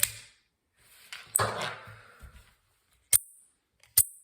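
Pocket knife blades snapping open and shut by spring: a sharp click right at the start, a short rasping sound about a second and a half in, then two sharp snaps about a second apart near the end.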